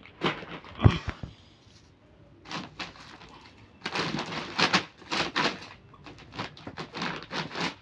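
A laminated plastic rice sack rustling and crinkling as its tied top is worked open by hand, in a run of short scratchy bursts, with a single thump about a second in.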